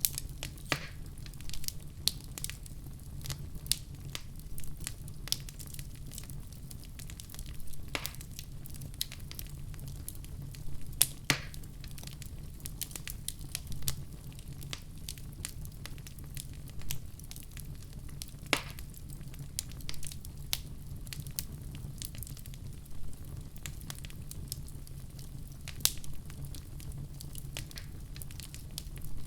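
Wood fire in a fireplace burning with a steady low rumble and irregular sharp crackles and pops, a few of them louder.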